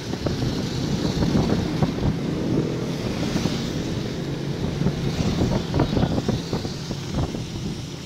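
Motorcycle engine running while riding on a wet road, with wind buffeting the microphone and a steady hiss of tyres on wet asphalt.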